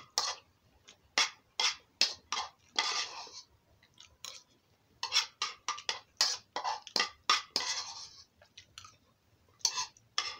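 Eating sounds: irregular sharp clicks and short scrapes, with a few longer scraping sounds, as food and cutlery are handled at the plate.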